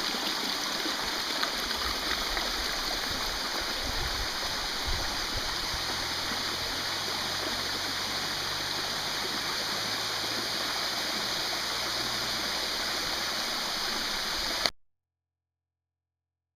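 Steady rush of flowing water from a forest stream and cascade at a natural pool, an even hiss that cuts off suddenly near the end.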